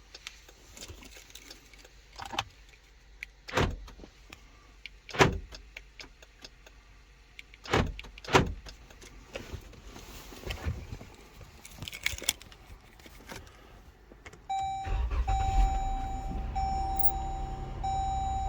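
A few sharp clicks and knocks, then near the end the 2014 Dodge Durango's engine starts and runs, with a steady dashboard chime that breaks about once a second; the engine starting shows the newly programmed key works.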